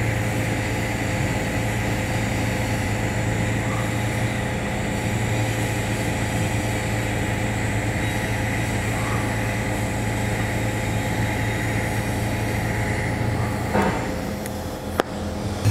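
TIG welding arc at 175 amps during the root pass on a steel pipe-to-socket-flange joint, walking the cup with 309 filler wire, fed by a Miller Dynasty 280. It gives a steady hum with a hiss, fades near the end, and then comes a single click.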